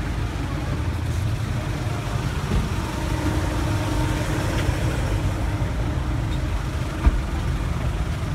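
A vehicle engine idling close by, a steady low rumble, with a single thump about seven seconds in.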